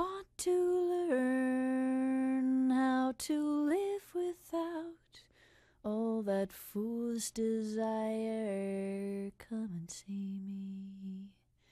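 A woman singing a slow, unaccompanied melody in long held notes that slide between pitches, with short breaks between phrases.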